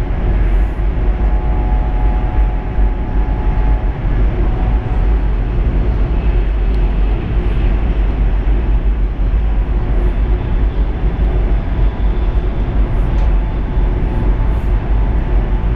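Steady cabin noise of a high-speed train running at speed: an even low rumble with no breaks.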